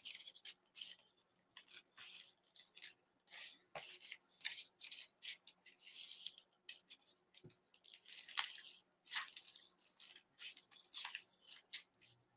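Scissors snipping through a thin plastic garbage bag: a faint run of short, irregular snips and crinkles.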